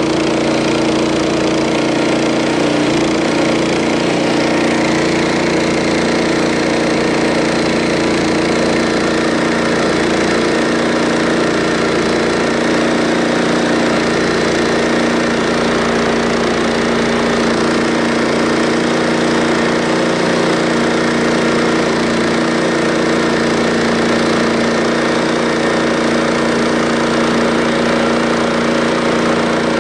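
Harbor Freight band sawmill's gas engine running steadily under load as the band blade cuts lengthwise through an oak log.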